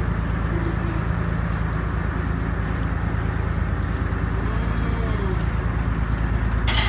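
Boat engine running at a steady low drone, with a short sharp knock near the end.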